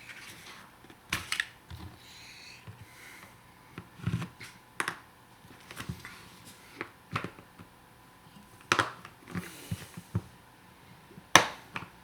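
Plastic sun visor being pried and worked apart by hand: irregular sharp clicks and knocks of the plastic shell and tools, the loudest a sharp snap near the end.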